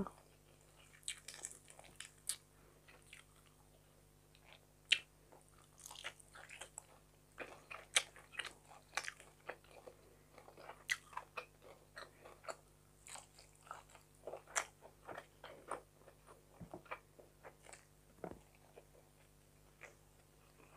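Close-up chewing of fried fish, with soft, irregular mouth clicks, smacks and light crunches.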